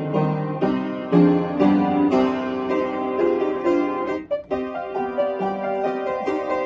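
Upright piano being played: a continuous passage of chords under a melody, with a brief break in the sound about two-thirds of the way in.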